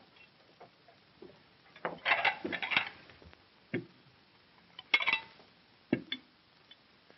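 Dishes and crockery clattering as they are handled and set down on a wooden table: a run of clinks about two seconds in, another about five seconds in, and single knocks in between.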